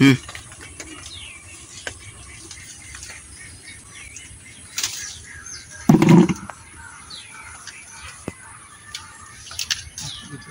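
Small birds chirping and calling in short, scattered notes, with a brief louder bump about six seconds in.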